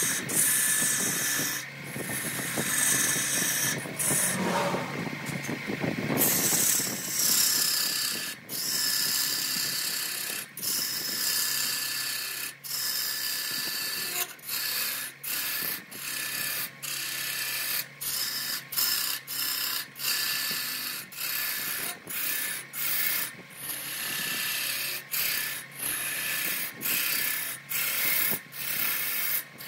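Lathe gouge cutting into a large spinning redwood block: a continuous scraping hiss of wood being shaved away, broken by frequent brief gaps, over a faint steady hum from the lathe.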